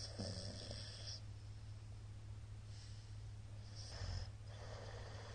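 A middle-aged man snoring in his sleep: a rasping snore on the in-breath in the first second, then noisy breaths, one with a low thump about four seconds in, and a long breath out near the end. A steady low hum runs underneath.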